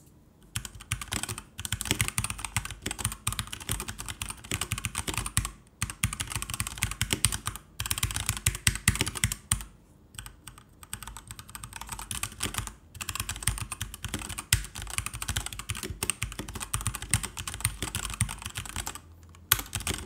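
Typing on a Keychron K4 96% mechanical keyboard with an aluminium frame and hot-swappable brown switches: a continuous clatter of keystrokes, broken by a few brief pauses.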